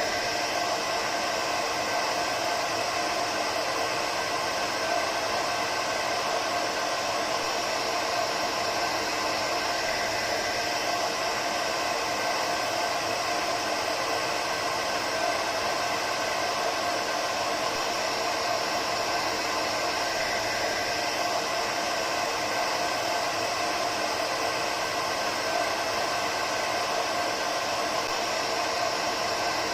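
Hair dryer running steadily: an even rush of blown air with a constant motor whine over it, unchanging throughout.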